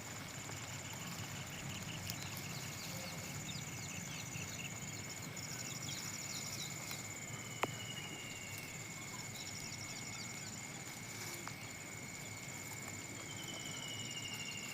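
Outdoor nature ambience: steady high-pitched insect drones with repeated chirping trills, and one sharp click about halfway through.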